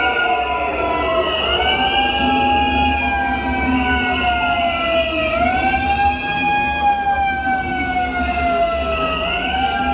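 A siren wailing: its pitch sweeps up quickly and then sinks slowly, three times, about every four seconds.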